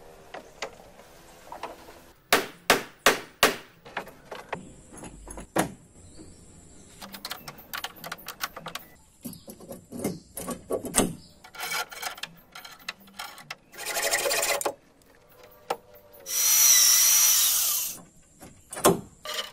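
Hand-tool work on a wooden boat hull: a quick run of about five sharp knocks, then scattered clicks and knocks. Near the end, a power drill bores into the wood in two short runs, the second one longer and the loudest sound here.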